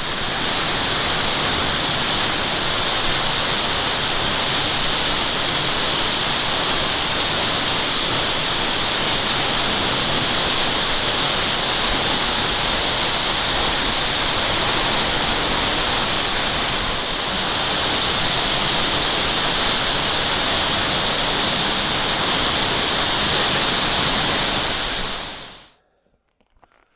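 Waterfall: a loud, steady rush of falling water that cuts off suddenly near the end.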